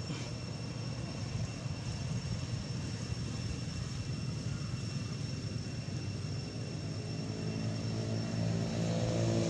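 A motor engine running with a steady low drone, growing louder near the end as it comes closer, under a thin, steady high-pitched tone.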